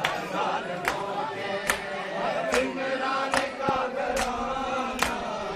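A crowd of men chanting a mourning lament (noha) together, with the sharp slap of open hands beating bare chests in unison (matam) landing a little more than once a second.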